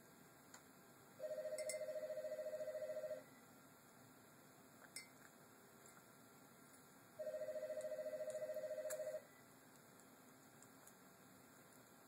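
A telephone ringing twice with a warbling electronic ring, each ring about two seconds long with about four seconds between them. Between the rings come a few faint splashes and clicks from a parrotlet bathing in a glass of water.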